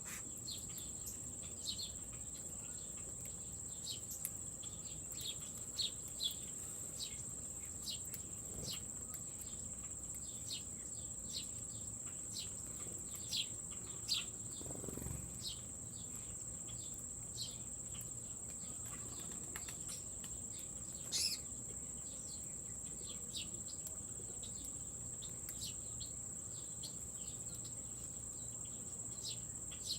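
Steady, high-pitched insect trill, typical of crickets or katydids in late summer, with many short bird chirps scattered through it.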